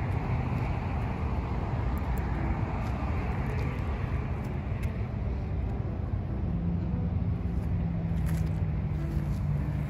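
Steady rush of outdoor road-traffic noise, with a low steady engine hum joining about six and a half seconds in.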